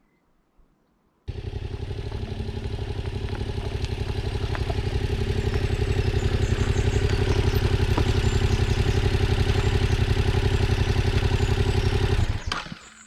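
Motorcycle engine running steadily at an even pitch. It cuts in suddenly about a second in and stops abruptly near the end.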